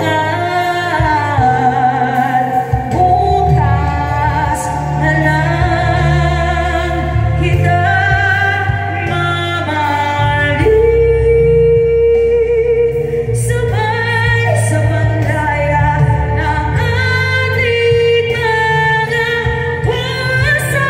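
A woman singing live into a microphone over a sequenced backing track played through a PA system, with a strong bass line under the held melody notes.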